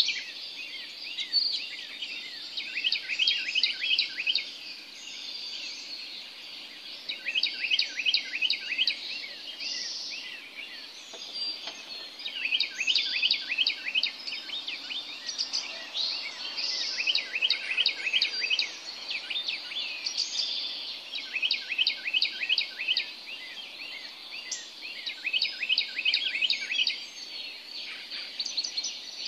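Birds calling in the early morning darkness: runs of rapid, short, high-pitched notes, each run lasting a second or two and coming again every few seconds over a faint steady background.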